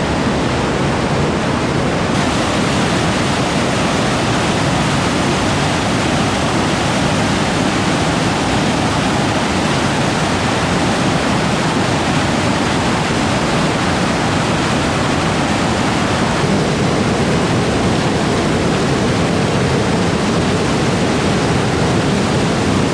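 Large waterfall, the Nzoia River plunging over rocks at Nabuyole Falls, heard close up: a loud, steady rush of water with no let-up.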